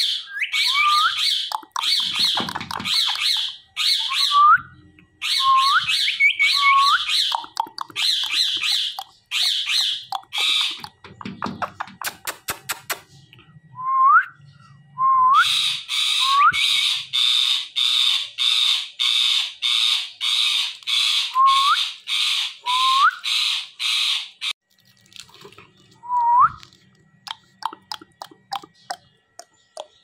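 Indian ringneck parakeet calling over and over in a fast series of harsh calls, about one and a half a second, each opening with a short rising note. About 11 seconds in the calls break off for a few seconds during a run of fast clicks, then start again, and they stop about 25 seconds in, with a single call after.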